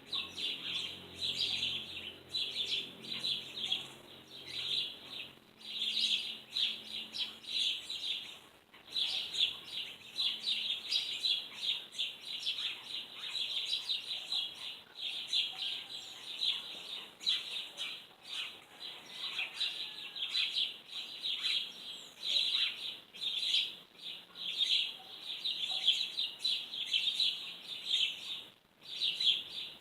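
Small birds chirping in dense, rapid, overlapping short notes, with brief pauses around a third of the way in and near the end.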